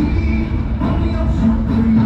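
Show soundtrack music with sustained held notes over a deep low rumble.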